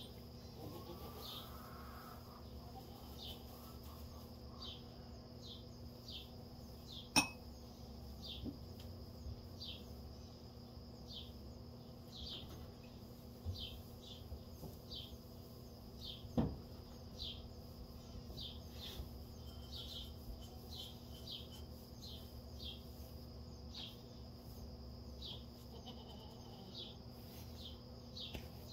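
Quiet barn ambience: a steady low hum under short, high chirps that repeat about once a second, and a faint goat bleat near the start. Two sharp knocks stand out, about a quarter of the way in and again a little past halfway.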